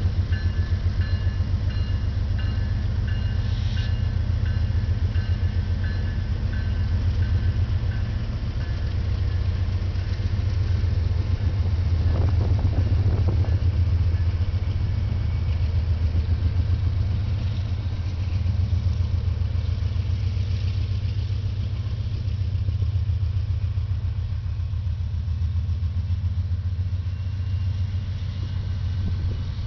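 Diesel freight locomotives passing close under power: a steady low engine rumble with a pulsing throb, a faint high whine over it for the first several seconds, and a single clank about twelve seconds in.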